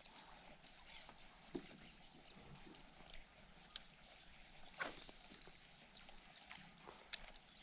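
Near silence on calm water: faint lapping against a kayak hull, with a few soft ticks and knocks, the loudest just under five seconds in.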